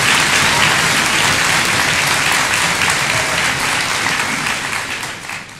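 A large audience applauding, dying away near the end.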